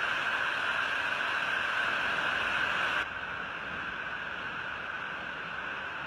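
Steady rushing noise of a waterfall pouring into a rocky pool. About halfway through it cuts to a softer, duller rush of water from a different waterfall.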